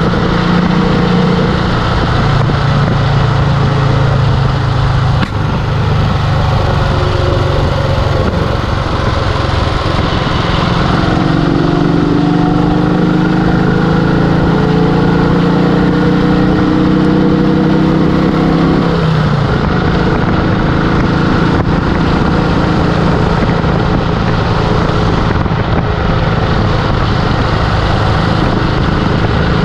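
A 1951 Vincent Comet's 500 cc single-cylinder four-stroke engine running under way on the open road. Its pitch climbs gradually for several seconds in the middle, then falls back suddenly about two-thirds of the way through.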